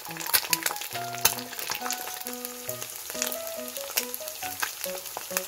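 An egg frying in oil in a nonstick pan: a steady sizzle with frequent sharp crackles and pops as the white cooks. Quiet background music plays underneath.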